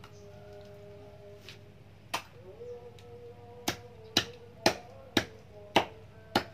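Meat cleaver chopping raw chicken on a wooden log block: about seven sharp chops, one about two seconds in, then a quicker run of six in the second half.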